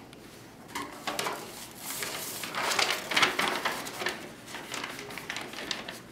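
Manila folders and sheets of paper rustling as they are handled and opened, a run of papery swishes loudest around the middle.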